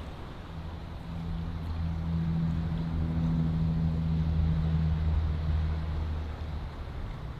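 A motor's low, steady drone over wind and surf-like noise, growing louder about a second in and fading near the end.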